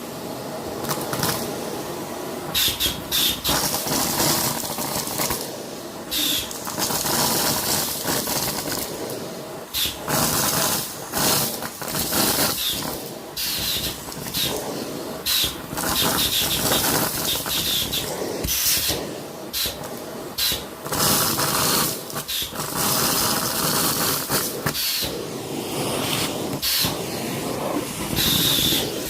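Vacuum cleaner running, its sound rising and dropping as the suction tool is pushed along and lifted, with frequent short knocks and scrapes of the tool against surfaces.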